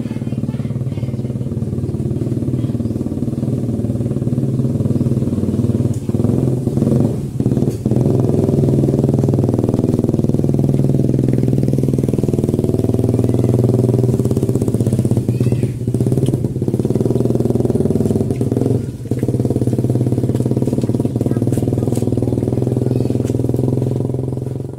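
A small engine running steadily close by, its pitch wavering slightly partway through, with a few sharp knocks over it.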